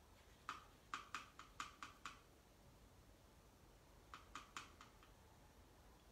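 Paintbrush tapping and working against a plastic watercolour palette: a quick run of about seven faint light clicks in the first two seconds, then five more about four seconds in.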